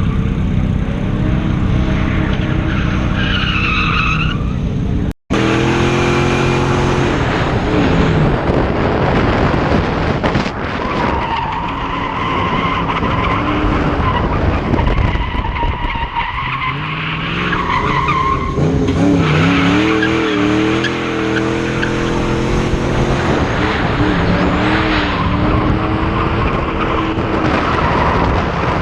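Mustang drift car's engine revving up and down while its tyres squeal through long slides, with a brief dropout in the sound about five seconds in.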